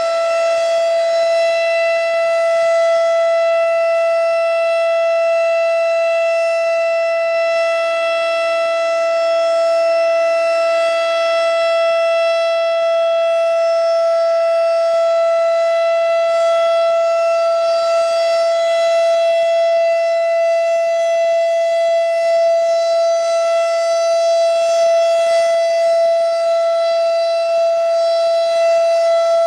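Federal Signal Thunderbeam 12-port civil defense siren sounding at full speed, holding one steady high-pitched tone during a siren test.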